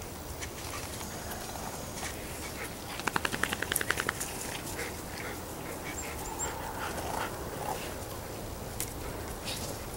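Dog giving a rapid run of about a dozen short, quick vocal pulses lasting about a second, roughly three seconds in.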